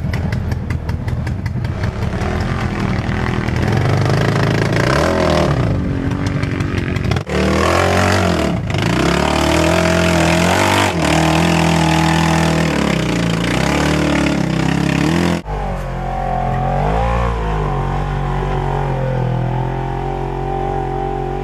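Side-by-side UTV engine revving hard under load on a rocky climb, its pitch rising and falling again and again. The sound breaks off abruptly twice and picks up again.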